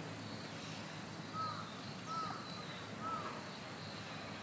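A bird calling three times, about once a second, each call a short arching note.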